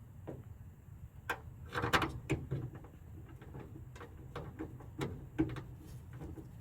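Scattered small clicks and knocks of hardware being handled as the bolts for a minivan sliding-door handle are started in their holes inside the door.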